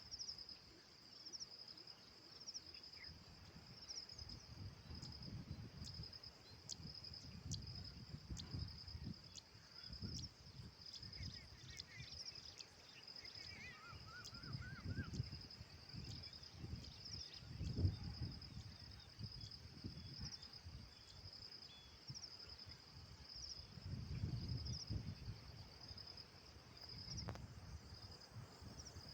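Insects chirring in a steady, continuous high-pitched trill with a fine pulse. Intermittent low rumbling swells come and go underneath.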